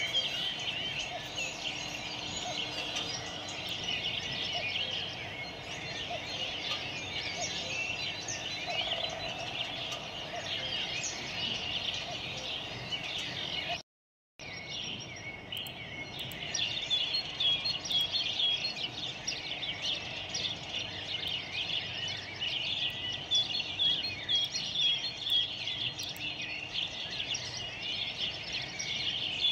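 Many small birds chirping and twittering in a dense, continuous chorus. The sound drops out for a moment about halfway through.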